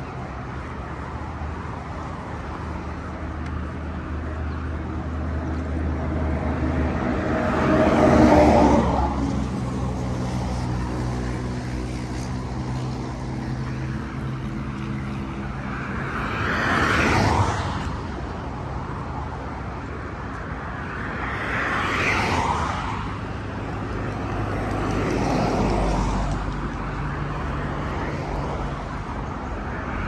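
Road traffic: vehicles passing one after another, each swelling and fading, four times, the first the loudest. A steady low engine hum runs under the first half and fades out about halfway through.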